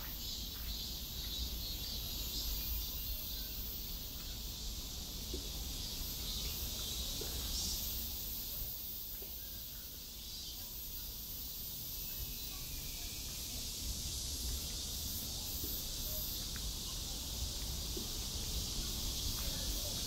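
Steady, high-pitched chorus of summer insects, with a low rumble underneath.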